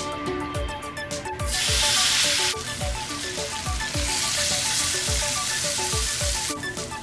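Shanghai-style fried noodles sizzling in hot rice oil in a frying pan, in two loud stretches: briefly about a second and a half in, then again from about four seconds in until shortly before the end. Background music with a steady beat plays throughout.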